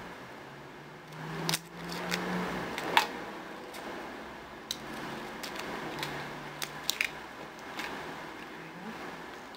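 Lychee rinds being cracked and peeled by hand: scattered crisp crackles and clicks as the bumpy shell breaks and tears away from the fruit.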